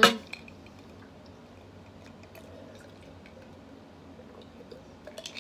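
A short burst of a woman's voice at the very start, then quiet sips of ice water from a glass mason jar, with a few faint clicks near the end.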